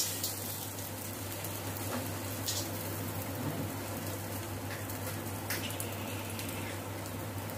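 Egg-dipped bread slices frying in oil on a flat iron tawa over a low flame: a steady sizzle with a few faint crackles, and a low hum beneath.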